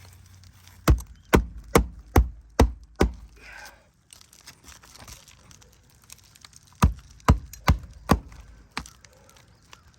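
Roofing nails being hammered into a shingle: two quick runs of sharp blows, six at a little over two a second, then a pause, then four more and a lighter last tap.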